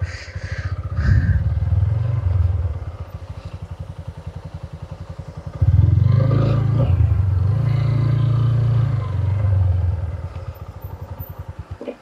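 Motorcycle engine running with an even, rapid low pulse. It gets suddenly louder about six seconds in and eases off near the end.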